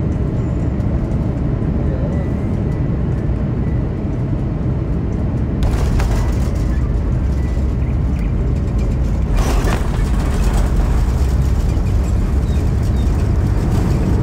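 Airliner cabin over the wing: steady jet engine and airflow rumble, which jumps suddenly about six seconds in as the wheels touch down and roll on the runway. About three seconds later the noise swells again as the engine's thrust reverser deploys for braking.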